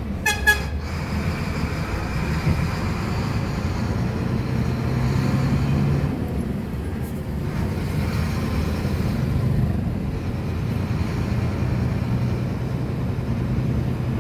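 JAC heavy truck's diesel engine running at low speed in stop-and-go traffic, a steady low drone heard from inside the cab. A short horn toot sounds about half a second in.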